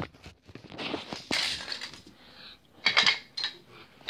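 Rustling and knocking as a toy house piece is handled and set onto a children's train table, with a quick cluster of light clinks about three seconds in.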